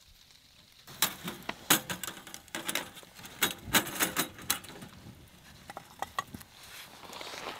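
Wood fire crackling and popping inside a small box wood stove with a glass door, mixed with light metal clinks of fire tongs at the stove's door latch. It starts about a second in, after a near-quiet moment.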